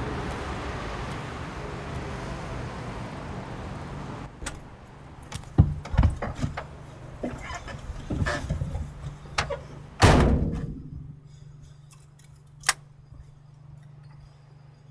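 A fading rush of noise, then a run of clicks and knocks and a heavy door slamming shut about ten seconds in, ringing out afterwards. A low steady hum remains beneath.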